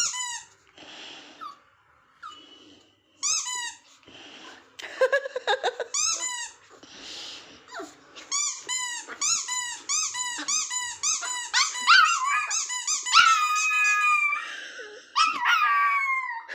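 A rubber squeaky toy being squeezed, first in single squeaks a few seconds apart, each followed by a short hiss as it draws air back in, then in a fast run of squeaks at about two to three a second. Near the end come longer squeals that fall in pitch, like a frightened Pomeranian puppy whining.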